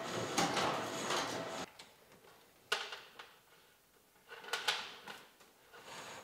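Bundle of stranded building wire being pushed into a conduit, the insulation scraping and rubbing along it for the first couple of seconds. After that come a few sharp knocks and clatters, the first about three seconds in and two more close together near the middle.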